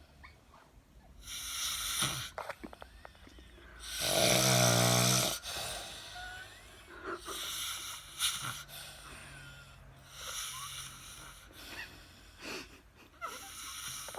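A person snoring: a breathy, hissing breath every couple of seconds, with one loud, low snore lasting over a second about four seconds in.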